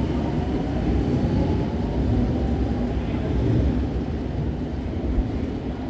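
Milan Metro Line 1 train pulling out of an underground station, a low rumble of motors and wheels on rails that fades slowly as it moves away.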